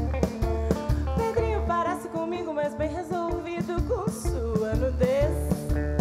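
Live pop-rock band playing: drum kit, bass, electric guitar and keyboard. A wavering melodic line comes over the top in the middle, while the drums and bass briefly drop out and then come back.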